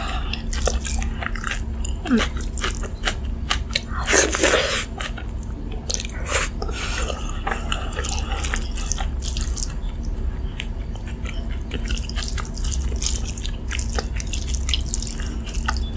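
Close-miked eating: crisp crunching bites and chewing of fried food and rice, full of short sharp clicks, with a couple of longer wet squelches a few seconds in. A steady low hum runs underneath.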